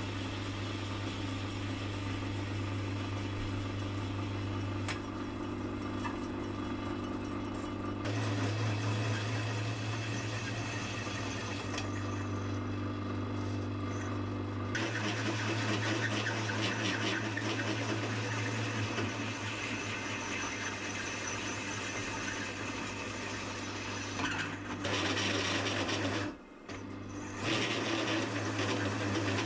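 Mains-powered metalworking tools running in a workshop: a steady low hum with hiss, in several segments that change abruptly, with a brief drop near the end.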